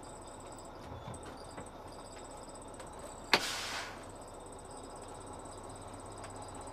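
Heavy truck's air brake system letting out one sudden, sharp burst of air hiss about three seconds in, lasting about half a second: the parking brake being set on the stopped tractor. A faint steady high-pitched whine runs underneath.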